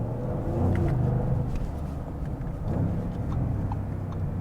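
Audi SQ8's V8 engine running as the car drives, heard from inside the cabin, its low tone shifting slightly in pitch a couple of times.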